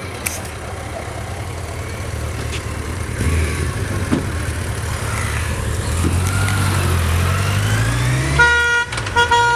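A motor vehicle's engine rumble growing louder and rising in pitch as it approaches, then near the end a horn blows a steady blast, breaks off briefly and sounds again.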